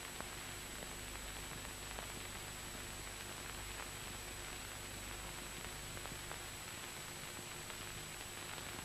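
Steady hiss of an old film soundtrack, with a thin steady high whine and a few faint crackles.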